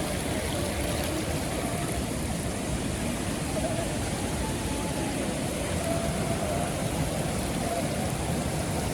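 Steady rushing of a nearby waterfall, with wind buffeting the microphone in a rough low rumble.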